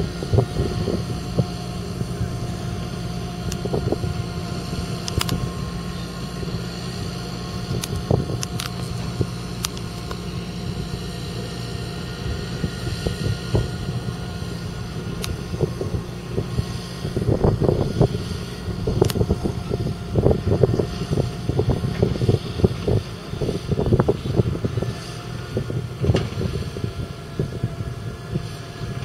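Fendt 927 Vario tractor's 7.8-litre turbocharged six-cylinder diesel running steadily under load as it pulls a water tanker. Wind buffets the microphone in gusts, most in the second half.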